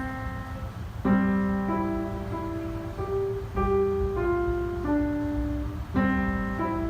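Instrumental music played on a keyboard: held chords, with a new chord struck about 1 s, 3.5 s and 6 s in.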